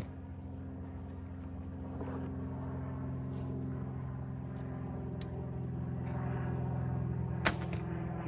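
A single sharp snap of a bowstring about seven and a half seconds in, as an arrow is loosed from a 35-pound Turkish-style bow, with a few faint clicks of an arrow being drawn from the quiver and nocked before it. A steady low mechanical hum runs underneath and grows a little louder.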